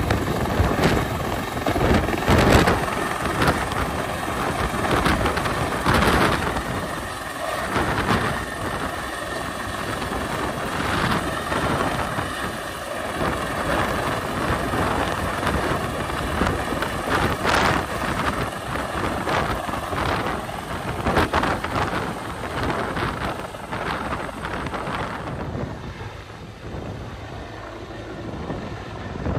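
Bell CH-146 Griffon (Bell 412CF) military helicopter hovering low overhead and then climbing away, its rotor and turbines running loud. Rotor downwash buffets the microphone with a gusty rumble. The noise drops somewhat near the end as the helicopter gains height.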